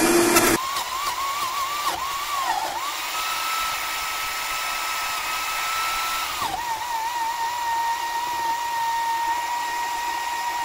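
Countertop blender with no speed control running flat out, puréeing vegetables into a thick soup. It is loudest and lowest in the first half second, then its whine jumps up in pitch and wavers as the mix loosens. About six and a half seconds in it settles a little lower and steady as hot water is poured in from a kettle.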